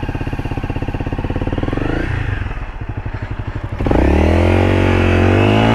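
A 2018 Honda CRF250L's single-cylinder four-stroke engine idling with even pulses, then revved up sharply about four seconds in and running louder.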